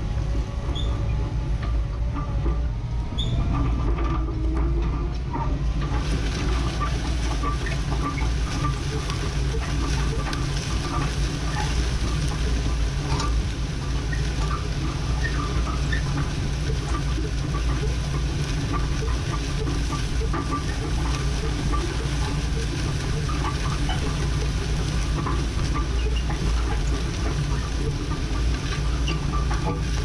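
Tractor engine running steadily under load while pulling a disc harrow through a field, with a constant low hum and scattered rattles and clicks. A hissing, clattering noise grows louder about six seconds in and carries on.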